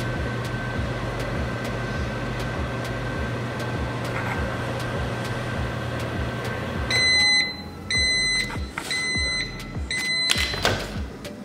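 Microwave oven running with a steady hum, which cuts off about seven seconds in as the countdown ends, followed by four end-of-cycle beeps about a second apart. A short click comes near the end.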